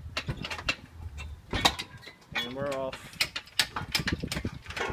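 Irregular metallic clanks and knocks as an engine block is hoisted out of a car's engine bay on the chain of a shop engine crane. A brief wavering pitched sound comes about halfway through.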